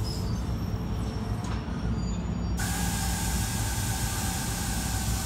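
NJ Transit multilevel commuter train standing at the platform, with a steady low rumble; about halfway through, a sudden hiss of released compressed air from the train's air system starts and holds steady.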